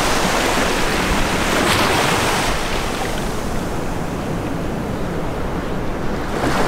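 Small surf waves breaking and washing up the sand, with wind buffeting the microphone. The rush is fuller for the first couple of seconds, then eases off.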